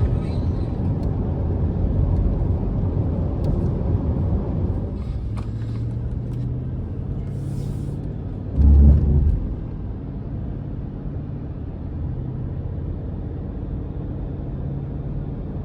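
A pickup truck driving, with its engine and road noise giving a steady low rumble. A brief, loud low thump comes about nine seconds in.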